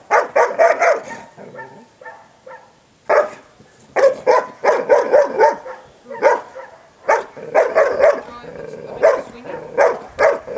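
Young Dutch Malinois giving defence barks at an agitating decoy: rapid bursts of several loud barks, with a pause of about a second and a half near the start.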